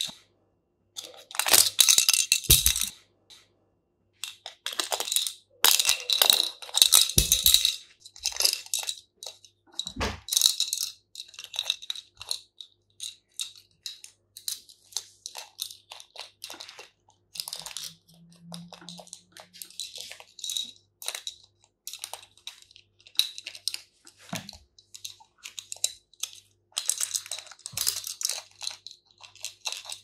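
Plastic rattle toy rattling and clicking in irregular bursts as a blue-and-gold macaw handles and chews it with its beak and foot; the loudest bursts come in the first third and again near the end.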